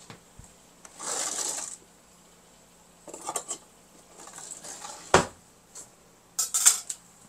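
Kitchen handling sounds of a baking pan of rolls and utensils: short scraping and brushing noises, with one sharp knock about five seconds in.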